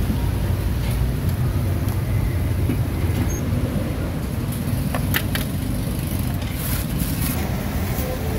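Steady low rumble of road traffic, with a few short clicks about five and seven seconds in.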